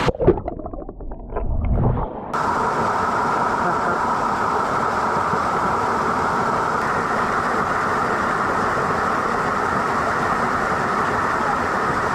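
Small waterfall pouring into a rock pool, a steady rushing splash. For about the first two seconds it is heard muffled from under the water.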